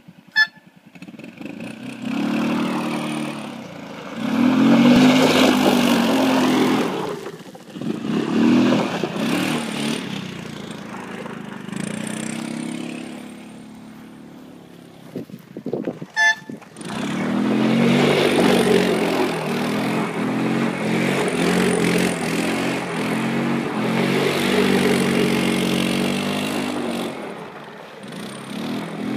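Polar Fox ATV-2's engine revving up and down in repeated bursts while the vehicle is drifted. It dies down to a quieter stretch around the middle, with a couple of sharp knocks, then runs on hard with a wavering pitch for the rest.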